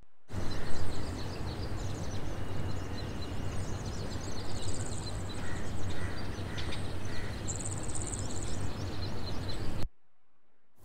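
Outdoor nature ambience: many birds chirping with two brief high insect-like trills, over a steady low hum. It cuts off abruptly about a second before the end.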